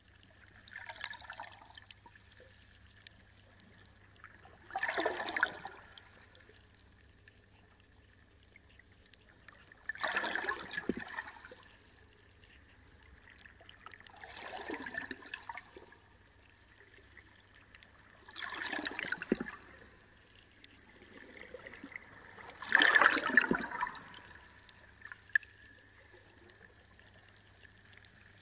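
Reef aquarium water splashing and gurgling in six surges, one every four to five seconds, the last the loudest, over a faint steady hum and high whine.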